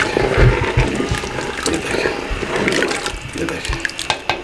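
Thin flour-and-water slurry being poured into mutton gravy in a clay pot while a wooden spoon stirs it: liquid pouring and sloshing, with a few sharp clicks near the end.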